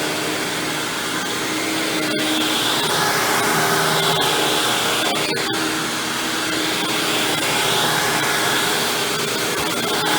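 Hoover WindTunnel Supreme upright vacuum cleaner running steadily, its sound swelling and dipping every couple of seconds.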